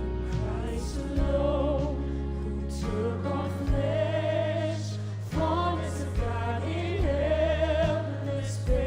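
Music between sung verses: held notes with vibrato, without words, over low bass notes that change about once a second.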